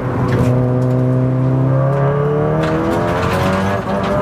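Big-turbo MK7 Golf R's turbocharged 2.0-litre four-cylinder pulling hard under full acceleration, heard from inside the cabin. The engine note climbs steadily through one gear, drops at an upshift about two and a half seconds in, and climbs again before another shift near the end.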